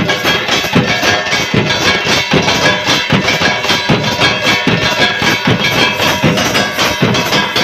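Folk devotional drumming in a steady driving rhythm: large double-headed drums beaten with sticks, the heavy strokes falling about every three-quarters of a second with lighter ones between. Metal hand cymbals ring over the drums throughout.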